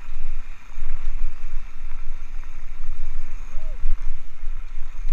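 Wind buffeting the action camera's microphone, mixed with tyre rumble and rattle from a mountain bike running fast down a dry dirt trail. A brief rising-and-falling squeak comes a little past halfway.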